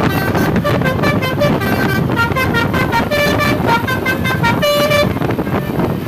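A bus telolet horn plays a quick tune of short, changing notes over the rumble of the road and engine. The tune stops about five seconds in.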